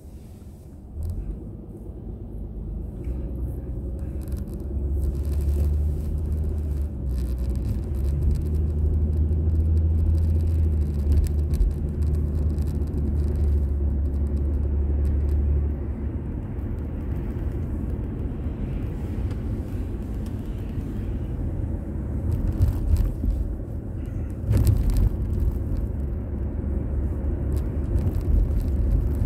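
A car driving, heard from inside the cabin: a low engine and road rumble that builds over the first few seconds and is heaviest from about 5 to 16 seconds in, then settles. A short sharp knock comes near the end.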